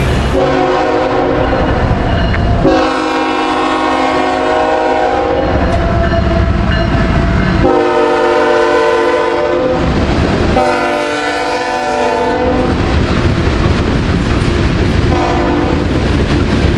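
Train's multi-chime air horn sounding a chord in several long blasts for a grade crossing, over the low rumble of the slow-moving train.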